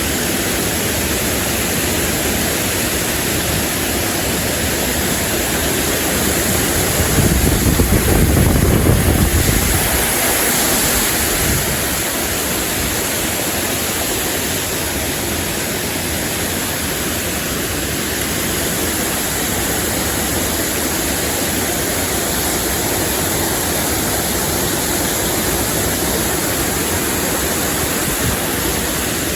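Stream water rushing steadily over riffles. A louder low rumble swells for a few seconds about seven seconds in.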